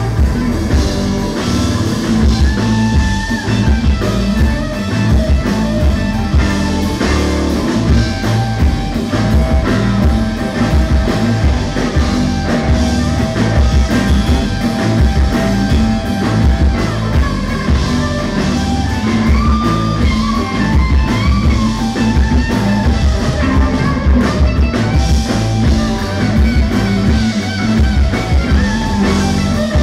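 Live rock band playing at full volume: drum kit, electric bass and guitar, with singing over the top.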